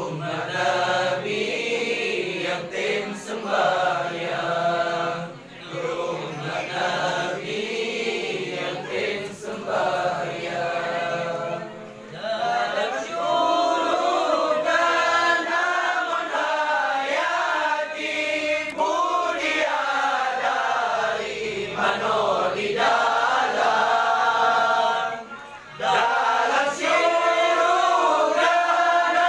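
A group of men chanting Arabic sholawat together in unison, with rising and falling melodic lines and a short break between phrases near the end.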